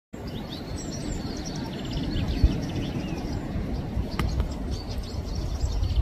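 Wind buffeting the microphone with a low, uneven rumble, while small birds chirp and twitter, most in the first couple of seconds. One low thump about two and a half seconds in.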